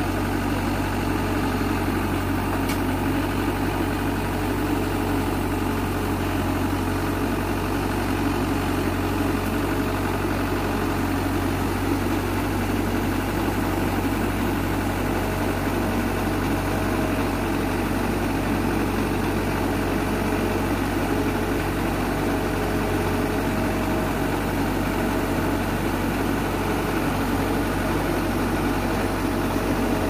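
Tracked combine harvester's diesel engine running steadily at an even speed while the machine crawls down steel loading ramps off a truck.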